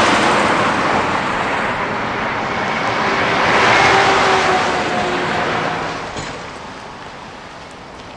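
Semi tanker trucks passing by on a highway: tyre and engine noise swells to a peak near the start and again about four seconds in, then fades away.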